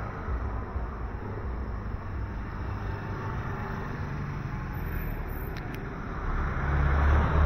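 Street traffic, with a small truck's engine rumbling as it drives up and passes close by, growing louder near the end.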